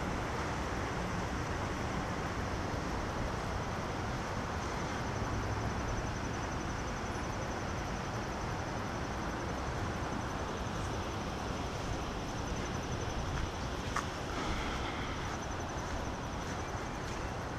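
Steady outdoor background noise with no clear single source, and a faint high, rapidly pulsing trill from about six seconds in.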